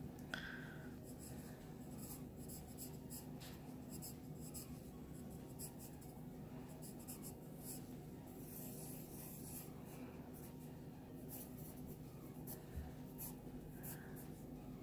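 Pencil sketching on sketchbook paper: faint, short scratchy strokes repeated again and again, over a low steady hum.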